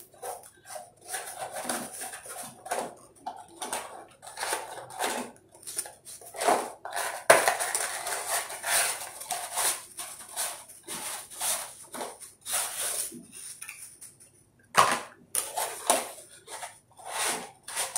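Cardboard mouse box being handled and opened: a run of rustles, scrapes and small clicks as the end flap is pulled open and the inner tray is worked out. There is a short lull about three-quarters through, then a sharper scrape.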